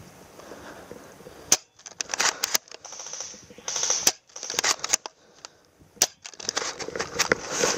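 Bolt-action airsoft sniper rifle being shot and cycled: a sharp snap about a second and a half in, then bursts of quick clicks and rattles with more sharp snaps later.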